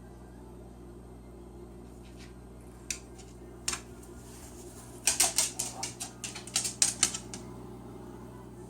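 Sharp clicks and taps on a hard object over a steady low hum: two single clicks, then a rapid run of about a dozen a little past the middle.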